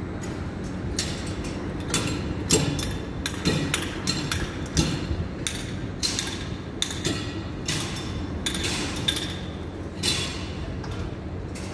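Construction site noise: irregular bangs and knocks, a couple or so a second, over a steady low rumble of machinery, the loudest bang about two and a half seconds in.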